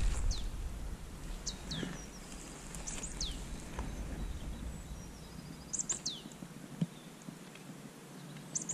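Small songbirds calling: a thin, high whistle that slides down in pitch, repeated about five times, with a faint rapid series of notes twice in between. Light wind rumbles on the microphone at the start.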